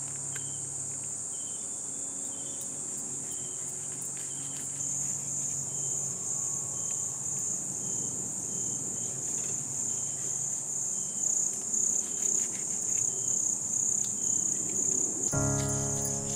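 A night chorus of crickets, a steady high shrill trill, with a shorter chirp repeating about once a second. Faint irregular scraping from a knife working a fish lies beneath. Background music comes in near the end.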